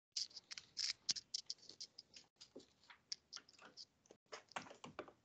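A quick, irregular run of small clicks and scratches from desk work, heard through a video-call microphone that cuts in just after the start.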